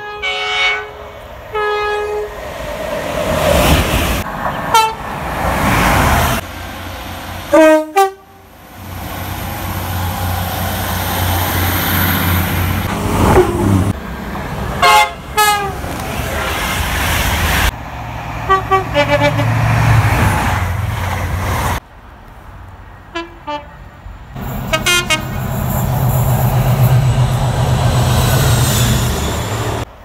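Trains passing through stations and sounding their horns: a string of short clips, each with brief pitched horn blasts over the low rumble and rush of the passing train, with abrupt cuts between clips.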